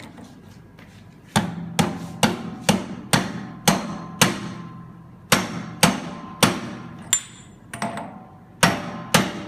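Hammer blows on metal, each with a short ring: a part being tapped onto a Hydramatic automatic gearbox shaft until it snaps into place. Two runs of about seven even blows, roughly two a second, with a short pause between them.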